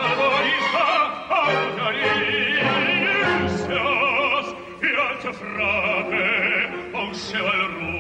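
Music with operatic singing: a trained voice holds long notes with wide vibrato over an instrumental backing.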